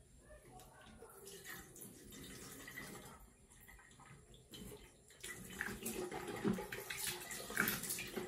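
Water running from a bathroom tap into a small sink, with splashing as a toothbrush is rinsed and then as water is cupped in the hands and splashed on the face. Faint at first, louder from about five seconds in.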